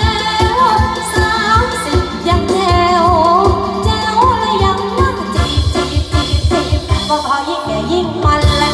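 Music with a singing voice and a steady beat; the beat drops out briefly near the end.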